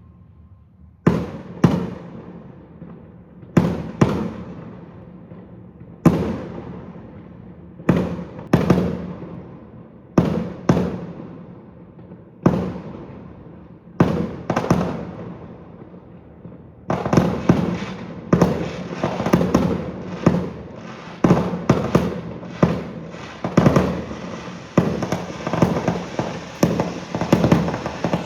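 Aerial fireworks shells bursting, loud bangs mostly in pairs about every two seconds, each trailing off in a rolling echo. Past the halfway point the bursts come thick and fast in a steady barrage.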